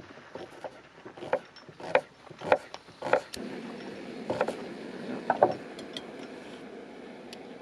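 A series of sharp clicks and knocks with a short ring to them, about a dozen over five seconds, with a steady hiss setting in about three seconds in.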